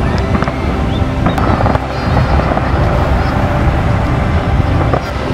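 Aerial fireworks display: repeated bangs and crackles of shells bursting over a dense low rumble, with a few faint rising whistles.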